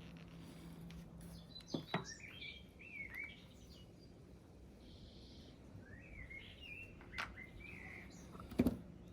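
Birds chirping faintly in short phrases that bend in pitch, in two spells. A few sharp clicks break in, the loudest near the end.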